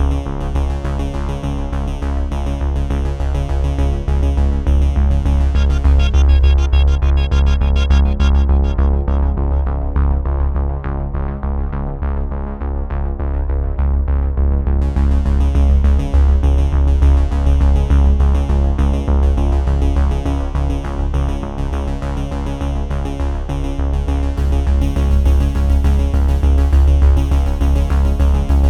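Background electronic music: sustained synthesizer chords over a steady, pulsing bass. The treble fades out partway through and comes back suddenly about halfway in.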